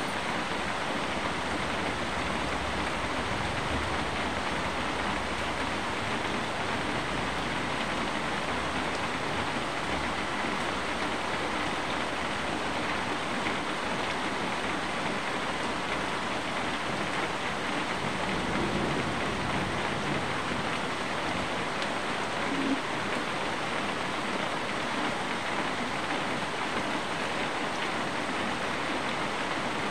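Steady rain falling on leaves and surfaces, an even continuous hiss. A faint low rumble sits beneath it during the first ten seconds or so and again briefly past the middle.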